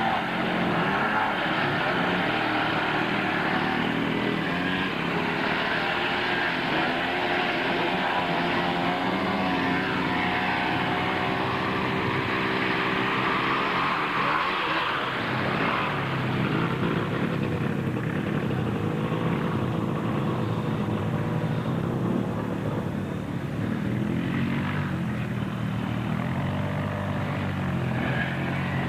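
Quad ATV engines running and revving, their pitch climbing and falling again and again as they are ridden under load through sand and water.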